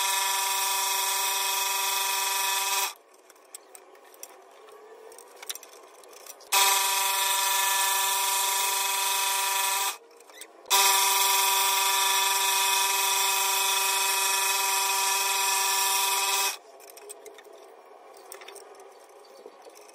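Scroll saw running with a steady pitched hum while cutting fretwork in a thin wooden workpiece. It is switched off and on between cuts, giving three runs of a few seconds each that start and stop abruptly. The quiet gaps between runs hold small clicks as the blade is unclamped and threaded through the next drilled hole.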